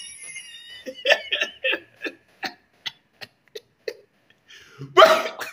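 A man laughing: a run of short, breathy laughs that taper off, followed by a louder burst of laughter near the end.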